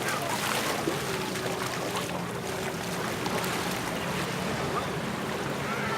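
Surf washing onto a beach with wind buffeting the microphone, and a steady engine drone coming in about a second in.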